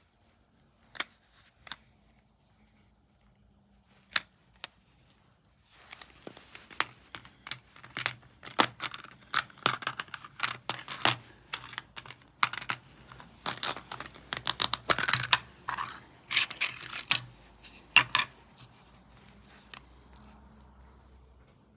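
Hard plastic straight-razor case handled and opened on a wooden board. A few separate clicks, then about six seconds in a dense run of rapid clicking, tapping and short scrapes of plastic on plastic and wood, which dies down near the end.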